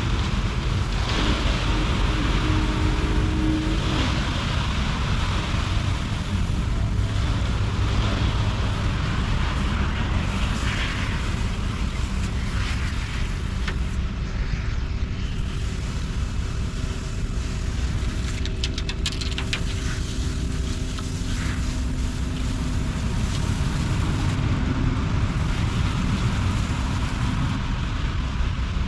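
Concrete mixer truck's diesel engine running steadily, with water hissing as the equipment is hosed down after offloading.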